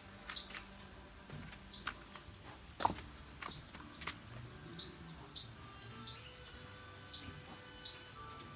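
Steady high-pitched insect drone with short chirps repeating about twice a second, broken by a few sharp knocks, the loudest about three seconds in.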